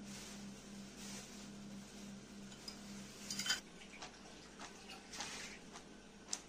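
Ceramic bowl of sliced mushrooms being handled: a cluster of clinks and knocks about halfway through, then the mushrooms tossed in the bowl with soft rustles and light knocks, and one sharp knock near the end. A steady low hum stops about halfway through.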